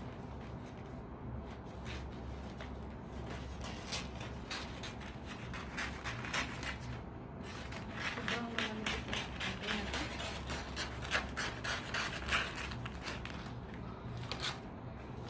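Gift-wrapping paper rustling and crinkling as it is handled and cut with scissors, the crackling busiest around the middle.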